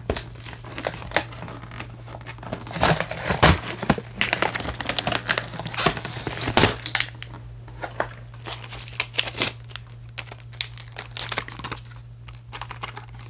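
Plastic and cardboard toy packaging crinkling and tearing as small accessories are pulled out of a box, in irregular bursts that are busiest in the first half and thin out toward the end.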